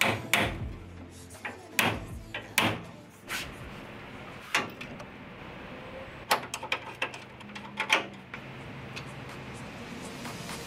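Hammer knocks and metal clanks on a car's sheet-metal radiator support as an oil cooler is fitted: a few single sharp knocks over the first four seconds, then a quick run of clatters about six to eight seconds in.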